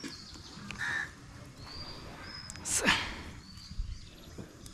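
Birds calling outdoors: a crow caws once about a second in, and small birds chirp with thin high whistles. A short, louder rushing sound falls in pitch about three seconds in.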